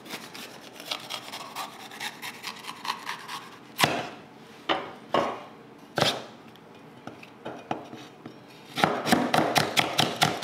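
Kitchen knife cutting a red pepper on a chopping board: scattered cuts and a few sharper knocks on the board, then near the end a quick, even run of slicing strokes, about four or five a second.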